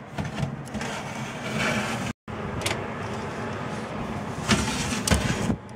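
A metal baking tray sliding into an oven, then, after a cut, the tray being pulled back out across the oven rack with scraping and several clanks near the end, over the steady hum of the running oven.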